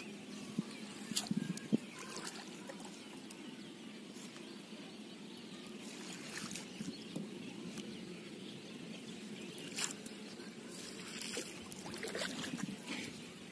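Water trickling and lapping around a small fishing boat, with scattered light clicks and taps from the net and boat being handled.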